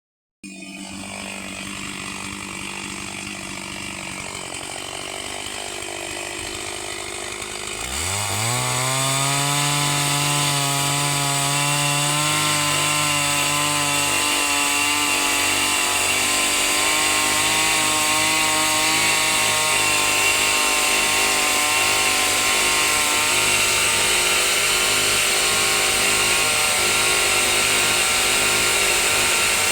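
Chainsaw engine idling, then revving up sharply about eight seconds in and running steadily at high speed, as when ripping a log lengthwise into planks.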